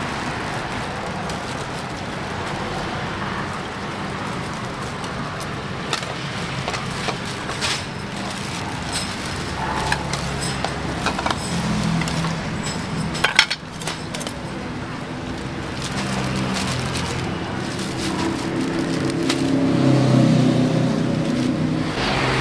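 Street traffic running past, with a vehicle engine swelling louder for a few seconds near the end. Scattered sharp clinks and clatters sound over it, the loudest about two-thirds of the way through.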